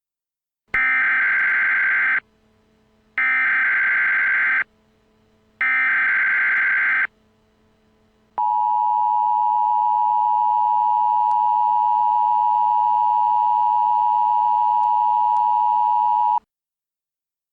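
Emergency Alert System activation tones: three identical bursts of buzzy SAME header data, each about a second and a half long with short gaps between them, then the steady two-tone EAS attention signal held for about eight seconds before it cuts off.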